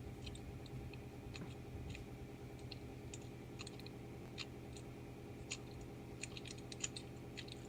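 Faint, irregular metallic clicks of a lock pick raking in and out of a Master Lock padlock's pin stack, over a steady low hum.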